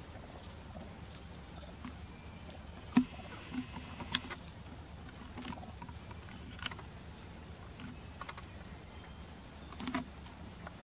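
Scattered light taps, clicks and rustles as young macaques scamper and scuffle over stone blocks and leaves, the sharpest click about three seconds in, over a steady low background rumble.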